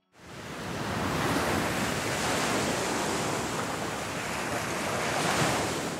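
Ocean surf sound: a rush of waves that swells in within the first second, holds steady, and fades away near the end.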